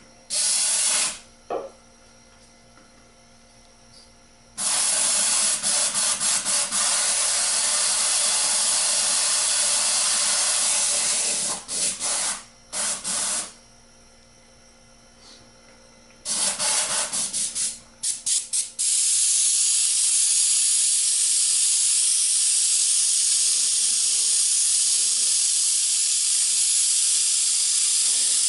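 Airbrush fitted with a homemade screen nozzle cap, hissing with compressed air as it spatters paint. There is a short burst about a second in, then a long spray of about seven seconds, several short, quick on-off bursts, and unbroken spraying from about two-thirds of the way through.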